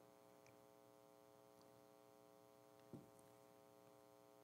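Near silence with a faint steady hum, broken once about three seconds in by a single short knock: a metal communion chalice set down on the altar table.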